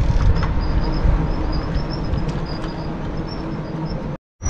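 Steady rumble of wind on the microphone and tyres rolling over paving as a cargo e-bike rides along, with faint high insect chirps over it. The sound cuts out abruptly near the end.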